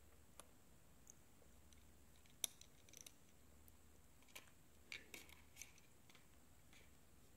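Faint, scattered small clicks and ticks from handling a replacement iPad glass digitizer panel and metal tweezers. There is one sharper click about two and a half seconds in and a quick cluster of clicks around five seconds.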